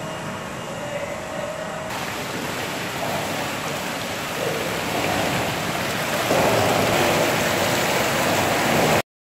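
Destemmed red grape berries pouring from a tipped stainless-steel bin and sliding down a metal chute into a vat: a steady hiss that starts about two seconds in, grows louder after about five seconds and cuts off suddenly near the end. This is the vat being filled for fermentation.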